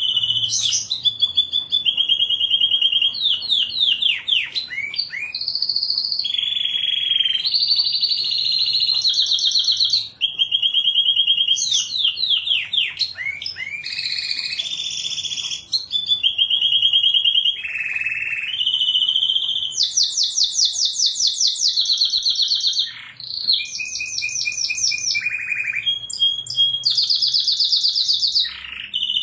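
Domestic canary singing without a break: a rolling song of fast trills, each a run of one repeated note held for a second or two before switching to another, some notes sweeping down or up.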